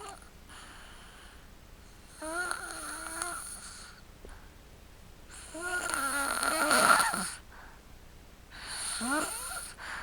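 Snoring in sleep: three snores about three seconds apart, each lasting about a second or more, with a pitched, whistling edge. The middle snore is the longest and loudest.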